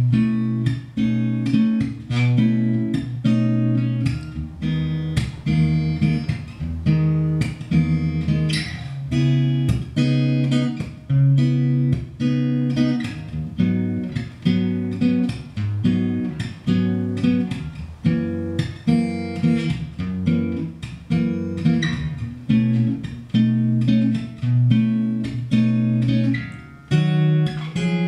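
Steel-string acoustic guitar fingerpicked, playing an instrumental melody: a steady run of plucked notes over ringing bass notes, with no singing.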